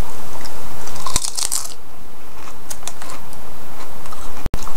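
A person biting into a crisp potato chip and chewing it: a burst of crunching about a second in, then scattered crackles as it is chewed. The sound cuts out for an instant near the end.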